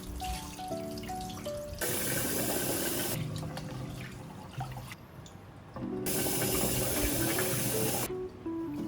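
Kitchen tap running into a pot while rice is washed, in two spells about a second and two seconds long, over light background music with a simple melody.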